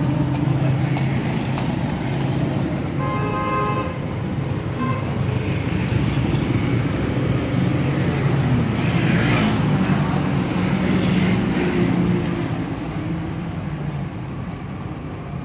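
Street traffic: engines running and vehicles going by, with a short horn toot about three seconds in and a vehicle passing close around the middle.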